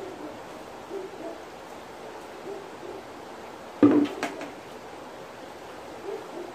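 A plastic bucket set down on the concrete about four seconds in, a loud clattering knock with a few quick clicks, over a steady wash of running water. A few short, low calls sound faintly now and then in the background.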